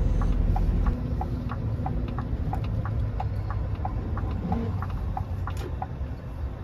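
Lorry's indicator ticking about three times a second inside the cab, over the low rumble of its engine during a left turn.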